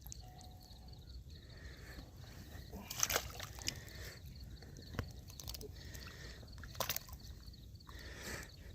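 Faint water sloshing, with a few short sharp splashes, as a flathead catfish is held in the shallows and released.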